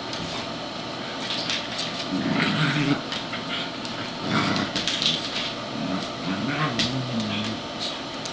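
Two dogs play-fighting, growling in low, wavering bursts, with scattered sharp clicks and scuffling from the tussle.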